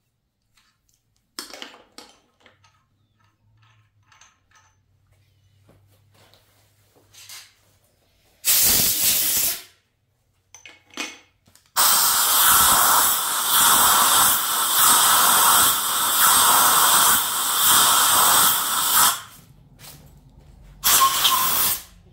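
Compressed-air blow gun blasting out a freshly tapped head-bolt hole in an aluminum LS engine block, clearing the cutting chips. A few light clicks come first, then a one-second blast, a steady blast of about seven seconds, and another short blast near the end.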